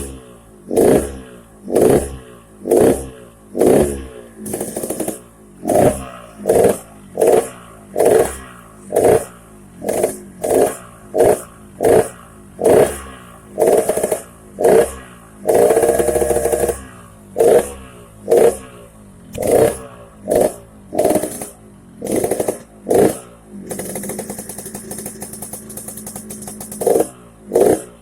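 Yamaha RX-King's two-stroke single running through a gutted 'bobokan' muffler, with the throttle blipped in short revs a little over once a second, each rising and falling. There is one longer rev midway, and a few seconds of idling near the end before the blips resume.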